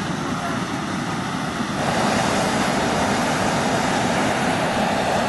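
Hot-air balloon's propane burner firing: a steady, loud rushing noise that gets louder about two seconds in as the flame is held on.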